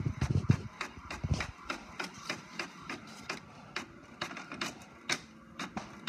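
Inkjet printer printing a page: its mechanism clicks and clacks about three times a second as the sheet feeds out, with a few low thumps in the first second and a half.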